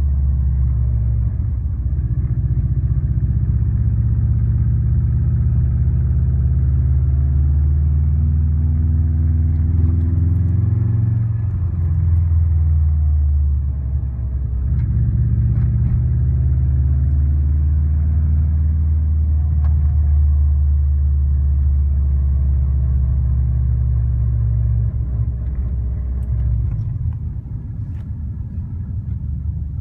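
Subaru WRX's EJ205 turbocharged flat-four engine idling steadily while warming up, settling to a lower, quieter idle near the end. The noise the owner first took for piston slap turned out to come from a cracked up-pipe flange leaking exhaust.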